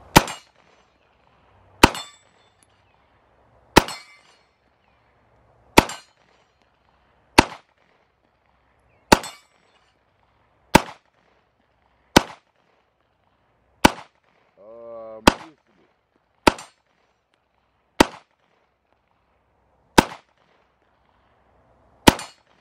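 PSA Dagger 9mm pistol fired fourteen times at a slow, steady pace, about one shot every one and a half to two seconds, with steel targets ringing after the hits.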